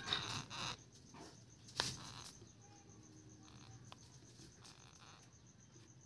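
Quiet handling of a week-old Indian ringneck parrot chick held in a palm: a brief rustle at first and two sharp clicks. About three seconds in comes a faint short peep from the chick.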